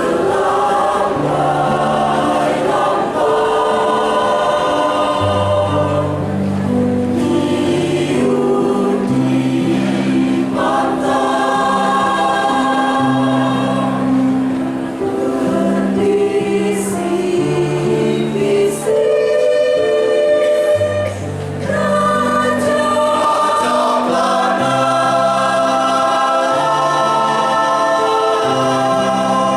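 A choir singing in several parts, holding long notes in chords, with short breaks between phrases.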